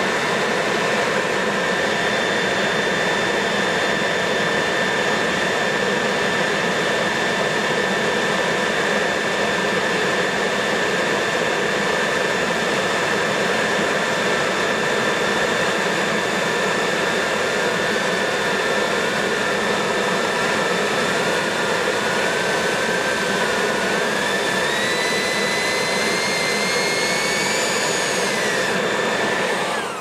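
Leaf blower blowing at full power, a loud steady rush with a fixed high whine, cutting off right at the end. From about halfway a second whine wavers and climbs in pitch over it, the DJI Mavic Mini's propellers working harder against the blast, and it falls away just before the blower stops.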